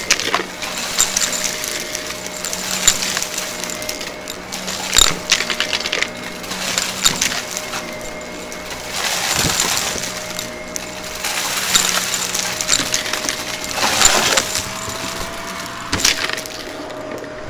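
Shark upright vacuum running on carpet, its brushroll picking up small beads and grit that click and rattle up the nozzle. The motor hum swells and eases with each push and pull of the cleaner.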